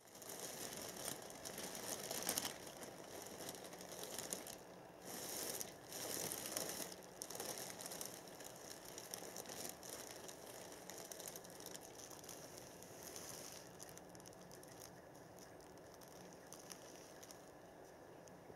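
Thin plastic bags crinkling and rustling as a cat shifts around inside them, loudest in the first several seconds and dying down to faint rustles near the end.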